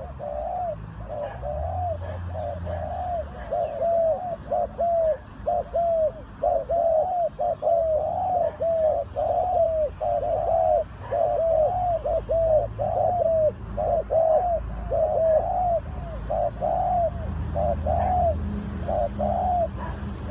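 Spotted dove cooing in a fast, unbroken series of short arched notes, about two to three a second, over a faint low rumble.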